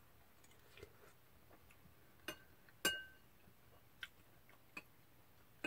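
A few light clinks of a metal spoon against a glass soup bowl, with scattered fainter clicks. The loudest clink, about three seconds in, rings briefly.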